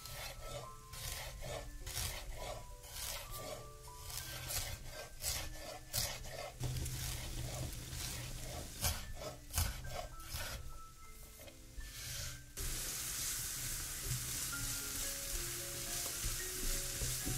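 A kitchen knife chopping ginger on a wooden cutting board, sharp cuts about two a second. About twelve seconds in, diced onion starts sizzling in oil in a frying pan, a steady hiss, stirred with a silicone spatula. Soft mallet-percussion music plays underneath.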